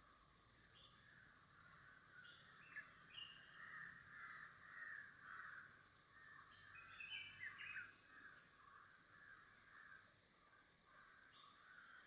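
Faint natural ambience: a steady high-pitched insect chorus with scattered short bird calls, busiest in the middle few seconds.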